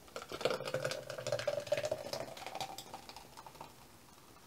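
A person slurping a spoonful of thick, ice-blended protein shake, a wet sucking sound with many small clicks lasting about three seconds. It sounds really creamy going in.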